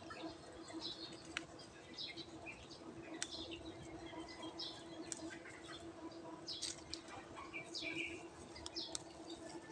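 Small birds chirping in short, scattered calls, with a few sharp clicks over a steady low hum.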